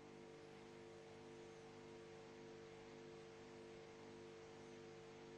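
Near silence: a faint, steady hum with light hiss.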